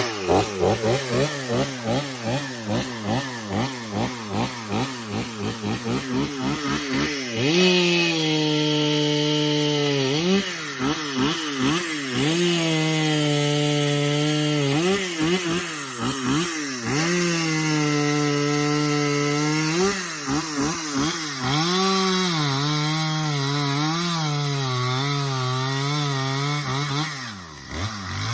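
Chainsaw blipped in quick throttle pulses for several seconds, then held at high revs as it cuts up through the log from underneath. The revs sag and recover under load a few times and drop back near the end. Cutting from the bottom keeps the weight of the wood from closing the cut and pinching the bar.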